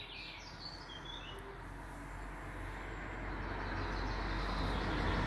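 A passing vehicle approaching, its noise and low rumble rising steadily, with a couple of faint bird chirps in the first second or so.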